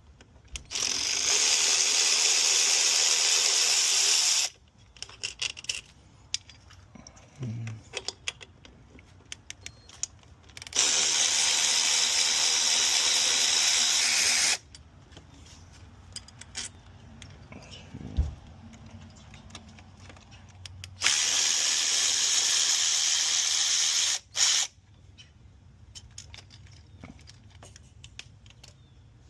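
Cordless power tool running in three steady bursts of about four seconds each, loosening the throttle body bolts, with small tool clicks and knocks between the bursts.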